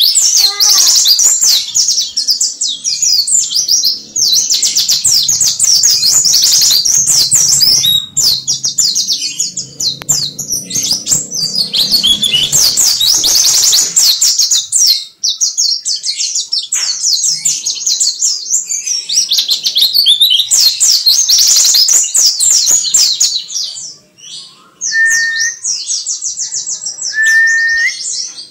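Caged white-eye (pleci) singing a long, rapid, high-pitched warbling song almost without a break, pausing briefly about halfway and again near the end. Two short, lower whistled notes come in the last few seconds.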